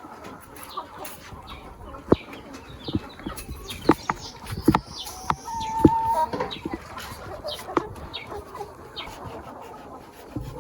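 Chickens clucking, with one short held call about six seconds in and several sharp knocks between about two and six seconds in.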